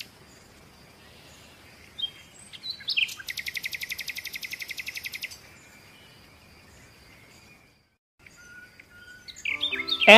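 Birdsong: a few short chirps, then a rapid, evenly pulsed high trill lasting about two seconds, and more scattered chirps near the end.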